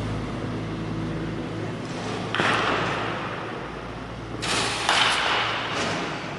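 Bunting practice against a pitching machine in an indoor cage: a sharp impact about two and a half seconds in, and another sharp one just before five seconds, each dying away with a short echoing tail, over a steady low machine hum.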